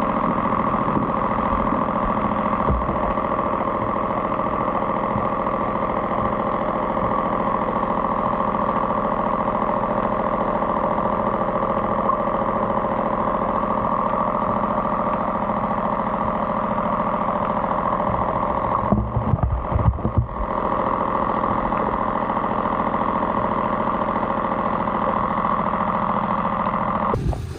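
A motor or engine running at a steady idle, an even hum that holds unchanged. About nineteen seconds in, a short spell of low thumps and dropouts breaks it.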